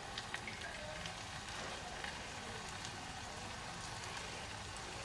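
Chicken meatballs frying in hot oil in a pan: a soft, steady sizzle with scattered faint crackles.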